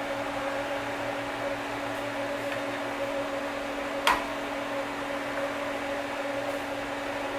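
Steady hum of a CNC milling machine standing by, with one sharp knock about four seconds in.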